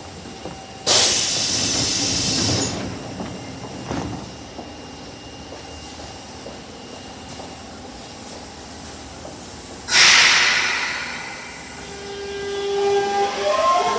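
Osaka Metro 22-series train's horn sounding with an abnormal, hissy tone, more rushing air than a clear note: one blast about a second in, a second near the end. The motors then start a rising whine as the train pulls away.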